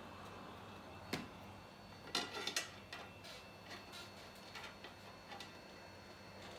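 Small sharp clicks and taps of hand tools working on a phone: one about a second in, a quick cluster of louder clicks around two seconds in, then lighter scattered ticks.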